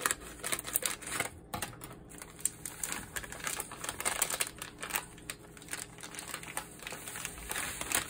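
Plastic packet crinkling and rustling as powdered dosa batter mix is poured and shaken out of it into a stainless steel bowl: a dense run of small, irregular crackles.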